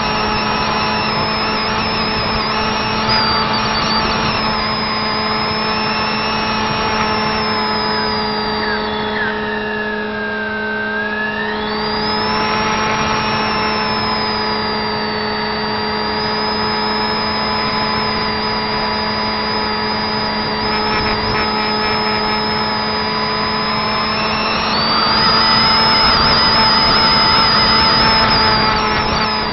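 Brushless electric motor and propeller of an RC flying wing whining in flight. Its pitch falls about nine seconds in, climbs back a few seconds later, and goes higher and louder near the end. Under it are a steady hum and wind rush.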